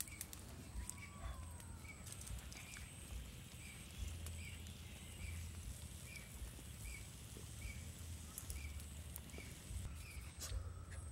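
Quiet outdoor ambience: a short high chirp repeating about every three-quarters of a second, a faint high steady tone coming and going, a low rumble and a few faint clicks.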